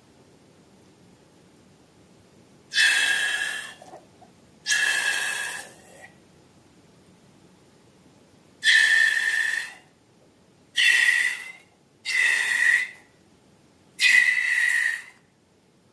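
Air squealing out of a balloon's neck in six short bursts of about a second each, each a hissing rush with a steady high whistle, with short pauses in between.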